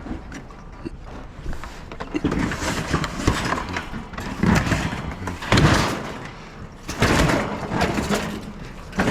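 Heavy stainless steel dishwasher being shoved and slid into the back of a vehicle: a run of scraping and knocking bursts, each lasting under a second.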